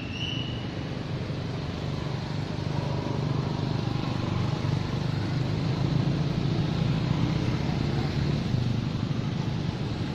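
Steady low rumble of a motor vehicle's engine, building gently toward the middle, with a short high chirp at the very start.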